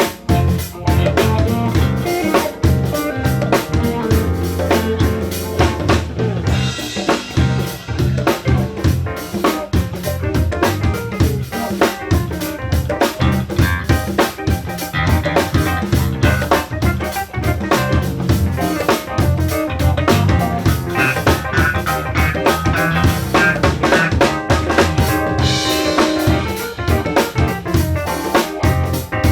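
A live band playing with drum kit, bass and guitar: a steady, driving beat under sustained instrumental lines.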